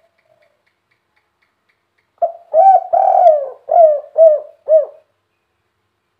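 Spotted dove (tekukur) cooing one phrase starting about two seconds in: about six hoarse, hooked coos with a longer, rougher note in the middle and three short notes to close, the 'kuk 3' song type that keepers prize.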